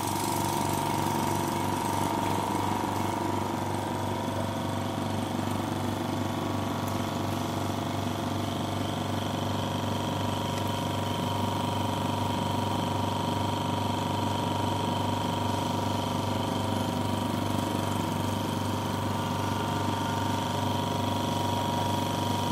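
Vacuum pump running steadily, drawing suction through a Büchner funnel filtration: a low buzzing hum with a steady high whine over it.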